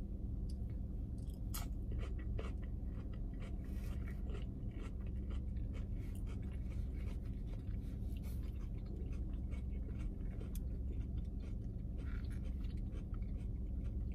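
Close-up chewing and mouth sounds of someone eating, a scatter of small wet clicks and crunches over a steady low hum inside a car.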